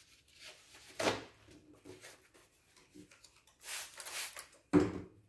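Whiteboard eraser being handled and rubbed across a whiteboard: faint rustles, then a short scrubbing hiss past the middle, with a brief louder sound near the end.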